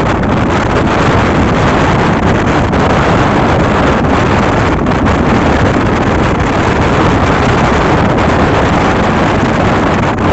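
Steady rush of wind on the microphone over the running engine of a moving motorcycle.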